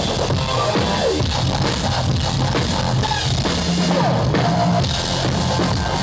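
Live band jam of a rock drum kit played hard together with an electronic keyboard synthesizer, loud and dense without vocals.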